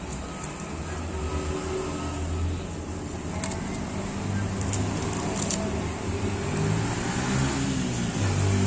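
A motor vehicle engine running nearby, a low hum that shifts in pitch and grows louder near the end. A few sharp crinkles come from the plastic wrapping being handled.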